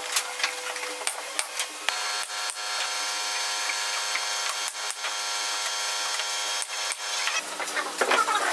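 Wooden slats knocking and rubbing together as a folding slatted rack is handled and opened, giving a scatter of sharp knocks. Steady background music with held notes runs under them.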